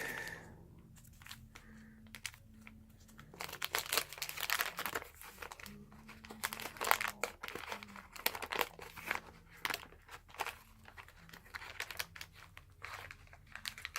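Paper wrapper of a 1981 Donruss baseball card pack crinkling in repeated bursts as it is worked open by hand, starting about three seconds in. The wrapper is being eased open rather than ripped.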